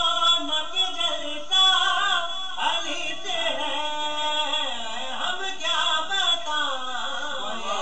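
A young man reciting an Urdu manqabat (a devotional poem) in melodic, unaccompanied solo singing, with gliding, held notes.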